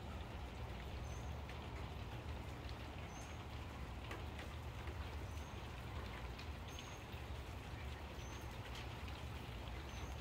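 Steady rain falling, with scattered individual drops ticking close by. A faint, short, high chirp repeats every second or two.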